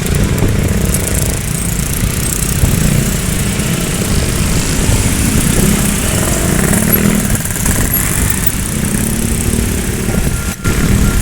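Motor vehicle engines running in a steady low rumble, with a brief break near the end.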